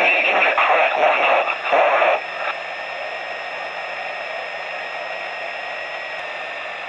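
Homebrew 27 MHz superregenerative receiver (one NPN transistor and an LM386 audio amplifier) on its speaker: a louder burst of garbled single-sideband CB signal for about two seconds, then steady hiss with a faint whistle.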